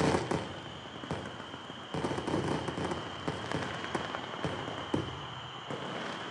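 Fireworks display: dense, fast crackling with scattered pops and bangs, the loudest ones right at the start and about two seconds in.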